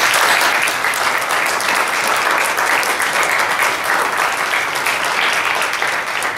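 A congregation applauding: many people clapping in a dense, steady patter.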